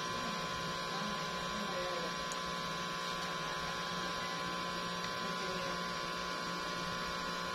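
Steady hum with several constant tones over a low even hiss.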